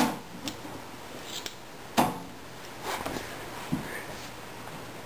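A few scattered light knocks and clicks over a quiet background, the loudest at the very start and about two seconds in.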